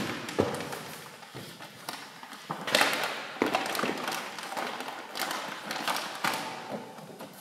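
Irregular light taps and thumps, with a brief louder rustle about three seconds in.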